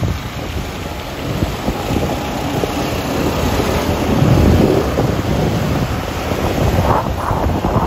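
Wind buffeting the microphone over a steady rush of traffic and road noise from riding along a wet street. A louder low rumble swells about four seconds in.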